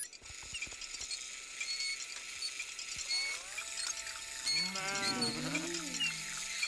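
Cartoon sheep bleating: drawn-out, wavering calls start about three seconds in and grow louder and layered midway, over a steady background of birdsong chirps.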